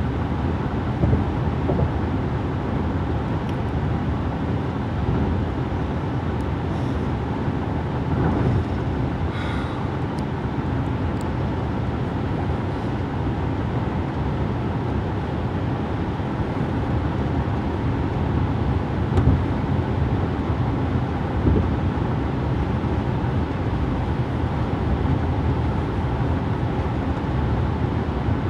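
Steady road and engine noise heard inside a car's cabin while driving at highway speed: a constant low rumble.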